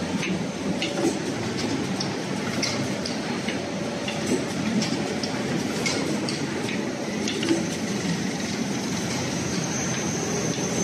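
Automatic rigid box making machine running: a steady mechanical hum with frequent irregular clicks and clacks from its moving parts, and a thin high whine.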